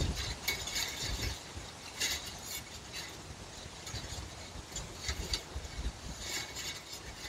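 Wind gusting, with scattered light metallic clinks and ticks at irregular intervals.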